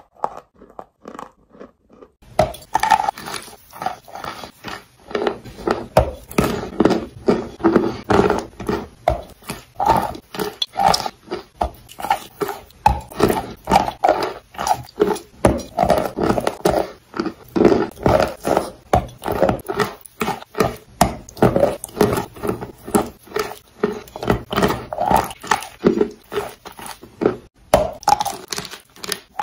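Close-miked chewing and crunching of edible chalk and clay paste in the mouth: crisp bites and a steady rhythm of wet, crunchy chews, fuller and louder from about two seconds in.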